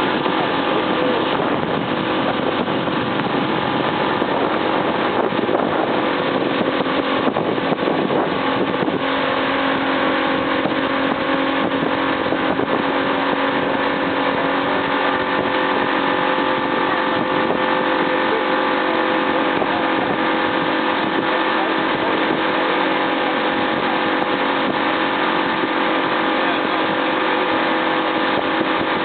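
Motorboat engine running steadily under way, a constant drone over a steady rush of wind and water.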